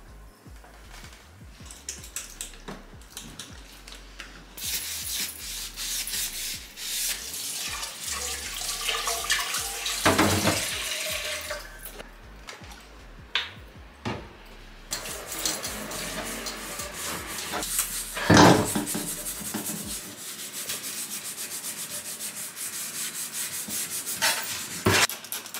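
Kitchen tap running water into the sink in two long stretches, with a few sharp knocks in and between them.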